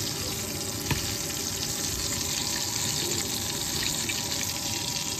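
Battered chicken pieces deep-frying in oil in a stainless steel pan: a steady sizzle with fine crackling, and one short click about a second in.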